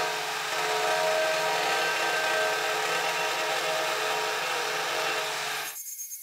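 Angle grinder with a 1/8-inch cut-and-grind disc running and lightly scoring a weld seam in steel plate: a steady whine with hiss. The sound drops away abruptly near the end.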